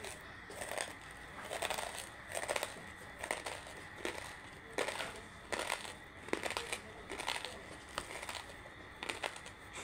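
Close-up chewing of crunchy banslochan (tabasheer, bamboo silica), with crisp crunches about once a second as the lumps are bitten and broken down.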